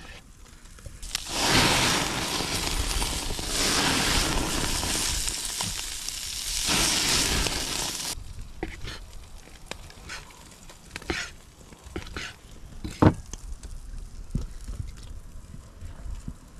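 Octopus tentacles sizzling on a very hot portable grill, being charred while basted with oil and vinegar; the sizzle is loud and steady for about seven seconds and cuts off suddenly. After that, quieter scattered light knocks and clicks, with one sharp knock about two-thirds of the way through.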